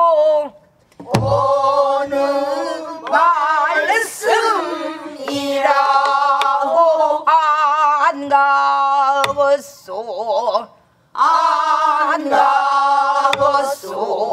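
Pansori singing: long held notes with a wide, wavering vibrato in phrases broken by short pauses, punctuated by a few sharp strokes on a buk barrel drum.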